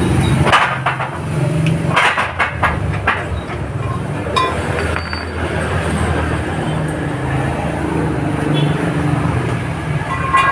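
Sharp metal clinks and knocks as a bent Yamaha Mio front wheel rim is handled and set against a steel press frame, a few about half a second in, around two to three seconds in, and again near the end. A steady low hum runs underneath.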